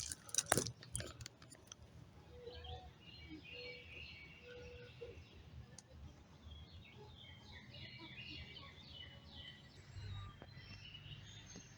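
Birds chirping, with many short repeated high notes, over faint outdoor background noise. A few sharp clicks or knocks come in the first second or so.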